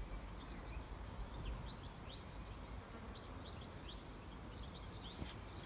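Small garden birds chirping and singing, with many quick, high, rising notes in irregular clusters, over a low steady rumble.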